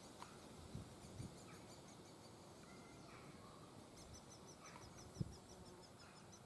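Great spotted woodpecker nestlings calling from inside the nest hole: a faint, rapid run of short high chirps, about six a second, in two runs. A single short knock about five seconds in.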